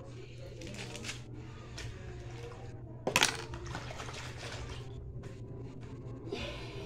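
Kitchen handling sounds: small clinks and knocks of utensils against dishes, with one sharp metallic clatter about three seconds in, over a steady low hum.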